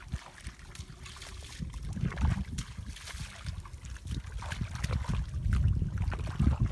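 Splashing and squelching of hands and feet working through shallow muddy water, with many short irregular splashes, and a low rumble of wind on the microphone that grows louder after about two seconds.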